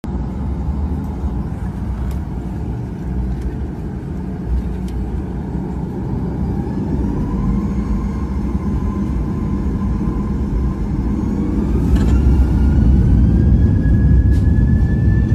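Boeing 737 turbofan engines heard from inside the cabin: a steady low rumble, with a fan whine that climbs in pitch and grows louder from about six seconds in as the engines spool up for takeoff.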